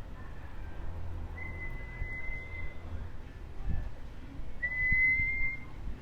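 Two long, steady whistled notes at about the same high pitch, the second shorter, louder and rising slightly at its start.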